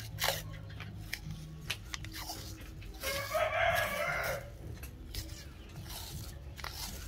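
A rooster crowing once for just over a second, about three seconds in. Around it come short crackles and ticks of masking tape being pulled off the roll and pressed onto a PVC fitting.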